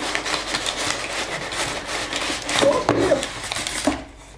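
Packing paper rustling and crinkling as it is pulled from a cardboard shipping box and crumpled in the hand, with the box's cardboard flaps rubbing. The dense crackling stops sharply about four seconds in.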